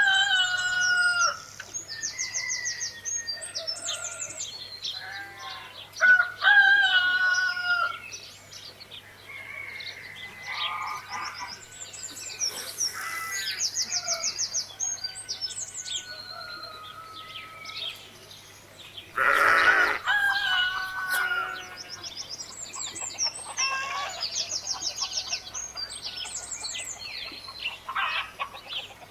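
Farmyard bird calls: chickens clucking and small birds chirping in rapid high trills, with one louder call about two-thirds of the way through.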